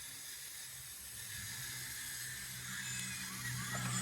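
Radio-controlled model excavator running: a steady low hum from its drive motors with an even hiss over it. The hum grows louder about halfway through as the machine is worked.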